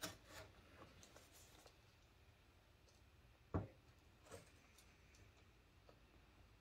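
Faint clicks and scrapes of a sealed phone box being handled as its seal is broken, with one sharper click about three and a half seconds in.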